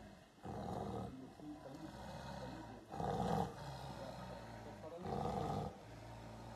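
Siberian (Amur) tiger roaring: three short roars about two and a half seconds apart, the middle one the loudest.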